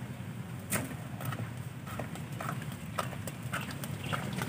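Footsteps on the ground: a series of short knocks about every half second, over a low steady hum.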